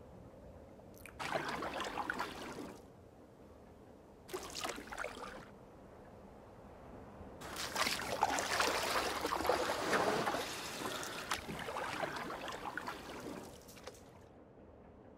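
Water splashing and washing in three bursts that start and stop abruptly: a short one about a second in, another around four seconds, and a longer, louder one from about seven and a half seconds until near the end.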